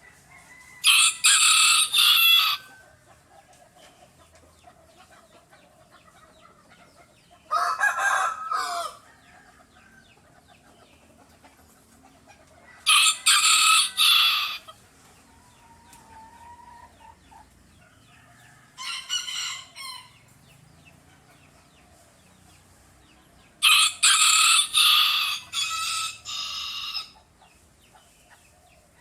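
Rooster crowing five times, each crow lasting one to three seconds, about every five seconds, with faint clucking between.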